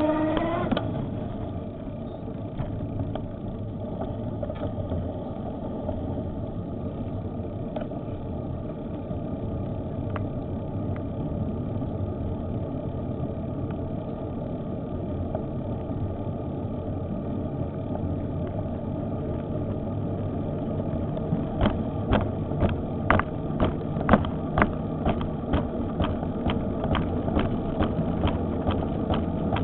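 Electric bike motor whining steadily while riding, over rumble from the tyres and wind. The whine rises in pitch right at the start. About two-thirds of the way in, a run of irregular sharp clicks and knocks begins and lasts several seconds.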